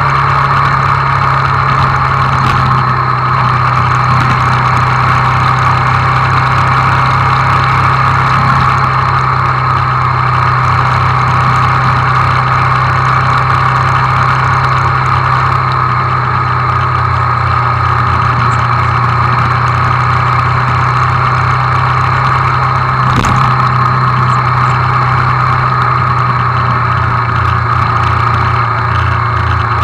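Hyosung GD250N (Exiv 250N) motorcycle's parallel-twin engine running steadily in sixth gear at road speed while the bike slowly loses speed, heard from the rider's seat.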